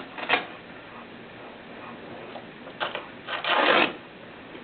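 Short rustling and scraping noises of packaging being handled: a brief one just after the start, then two more near the end, the last about half a second long.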